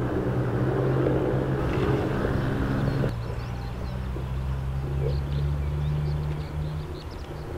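Steady low drone of a distant engine, fuller and louder for the first three seconds, then dropping abruptly to a quieter hum. Faint short high bird chirps come through in the second half.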